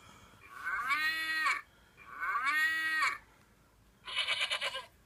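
Two cow moos from a farm-animal sound toy, each about a second long and rising then falling in pitch. A wavering goat bleat starts about four seconds in.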